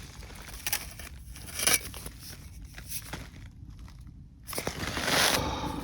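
Irregular crinkling and rustling as something is handled, with a few light clicks and a louder rustle about five seconds in.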